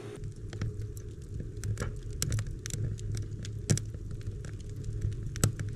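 Wood fire crackling, with irregular sharp pops over a low steady rumble.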